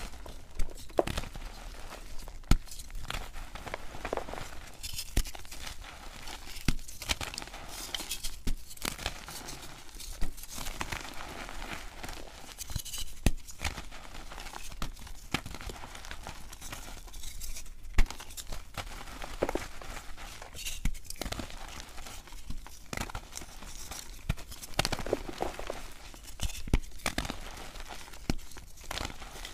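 Dyed gym chalk blocks crumbled and crushed by hand: dry, gritty crunching and crackling, with irregular sharp snaps as pieces break off, the loudest about two-thirds of the way in.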